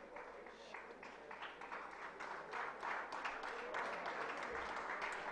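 Audience clapping, faint and distant, growing a little fuller after about two seconds.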